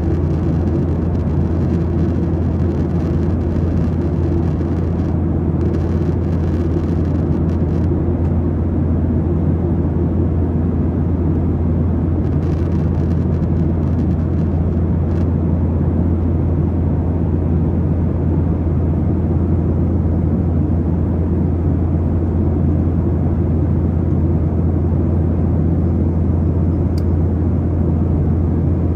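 Airplane engine noise: a steady low drone that holds the same pitch and level throughout, with no change in power.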